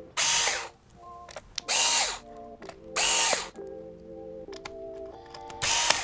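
Electric precision screwdriver running in four short bursts of about half a second each, its motor whine rising and falling with each one, as it backs out the screws holding a Chromebook motherboard. Background music with sustained notes plays underneath.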